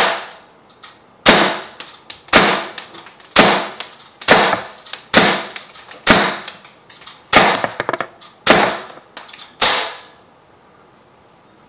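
Sig Sauer M17 CO2 pellet pistol firing .177 pellets, about ten sharp shots roughly a second apart, as the rest of the CO2 cartridge is shot off. The shots stop a couple of seconds before the end.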